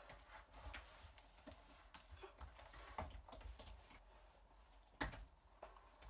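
Near silence with a few faint, scattered clicks and taps, the sharpest about three and five seconds in.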